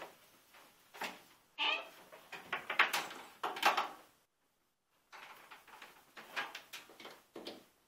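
Irregular knocks and clicks from handling a bread machine as it is set up, the plastic lid and controls being worked, with a short break about four seconds in.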